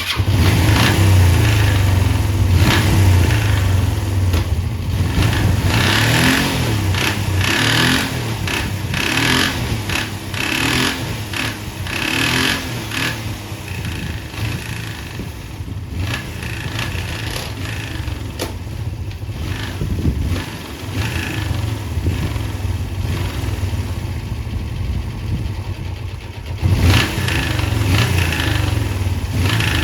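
Suzuki GSX400E motorcycle's 399 cc air-cooled parallel-twin engine starting and running, louder in the first half and again near the end. The engine has an abnormal noise from its bottom end, the sign of a fault in the crankcase that the seller says needs repair.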